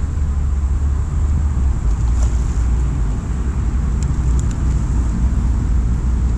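Wind buffeting a small camera's microphone: a loud, steady low rumble, with a few faint ticks in the middle.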